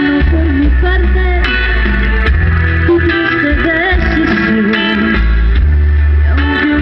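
Live performance of a ballad through PA speakers: guitar over a steady bass line, with a singer's voice carrying the melody.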